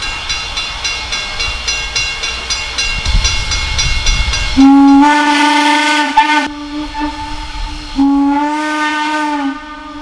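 Steam locomotive working hard with rapid, even exhaust beats. About halfway in, its steam whistle blows a long blast, and then a second long blast near the end.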